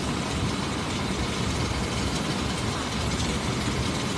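Steady jet noise from a parked Airbus airliner, an even roar across the range with a rumbling low end.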